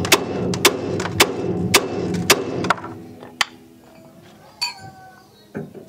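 Hammer blows on the steel spindle and steering arm of a 1964 Chevy Nova's front suspension, about two a second, each one ringing. The strikes stop about three and a half seconds in and the ringing fades.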